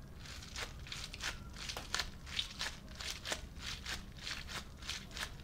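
Balloon stress ball filled with water beads, squeezed and kneaded by hand, giving a quick, irregular run of short crackling squelches as the beads shift and the rubber stretches.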